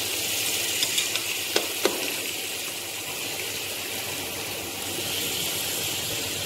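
A metal ladle knocks against the side of a metal cooking pot several times in the first two seconds while boiled mutton pieces are scooped out of the hot broth. Under it is a steady hiss of food cooking on the stove.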